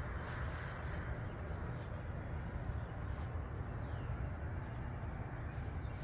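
Steady outdoor background noise with a low rumble, and a few faint high ticks.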